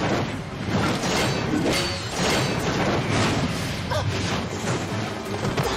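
Action music from a film score, with fight sound effects: repeated whooshes and hits, about one every second.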